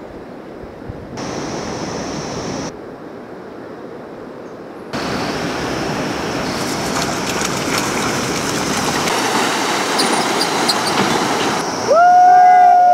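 Mountain bike tyres rolling over loose gravel and stones, crunching and rattling, starting about five seconds in and growing louder after a few seconds of softer outdoor hiss. Near the end the rider lets out a short, high shout.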